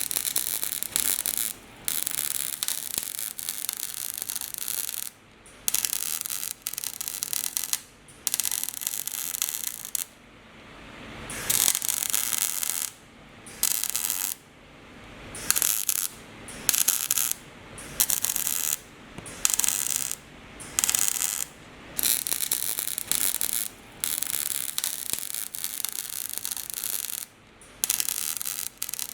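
Electric arc welding crackling and hissing in runs of one to three seconds, broken by short pauses where the arc stops.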